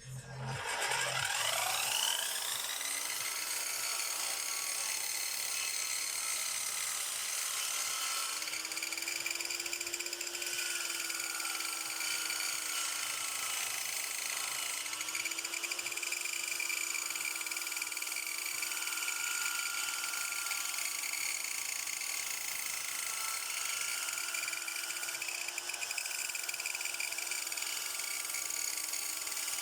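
Hand-held electric power tool starting up, its motor rising in pitch for about two seconds. It then runs as a steady whine with small shifts in pitch, typical of trimming the edges of wooden boards.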